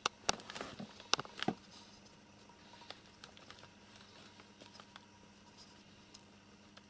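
Cat scrabbling and rustling among newspaper and wooden boards. There are a few sharp clicks and rustles in the first second and a half, then only faint scattered ticks.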